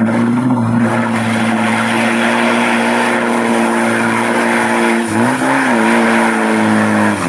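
Diesel pickup truck engine held at high revs at full throttle while the truck is bogged in deep mud and its wheels spin. It runs at a steady high note, with a brief dip and climb back about five seconds in.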